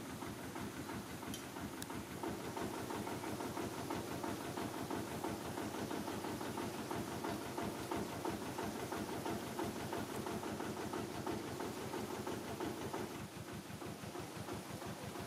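Narrowboat diesel engine idling steadily with a rapid, even pulsing. It drops a little in level about thirteen seconds in.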